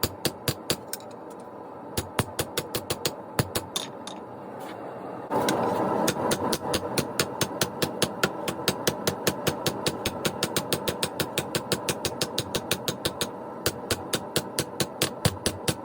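Ball-peen hammer striking hot knife steel on an anvil in quick, even blows, about five a second, with a short lull near the start. About five seconds in, a steady roar starts and carries on under the hammering.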